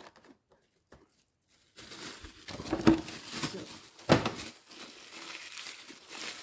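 Thin plastic food bag crinkling and rustling as ground beef is bagged and the bag is handled and twisted shut. It starts after a second or two of quiet, with two louder knocks in the middle.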